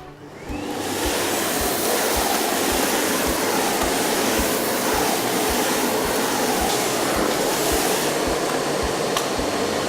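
Miele Blizzard CX1 bagless vacuum cleaner switching on, its motor spinning up with a rising whine in the first second. It then runs steadily at full suction with the universal floor head set for hard floors, and begins to die away near the end.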